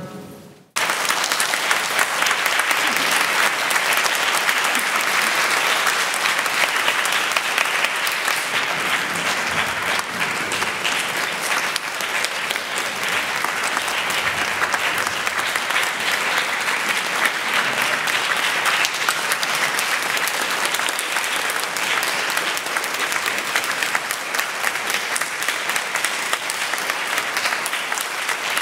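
Audience applause: many people clapping. It starts suddenly about a second in and goes on steadily.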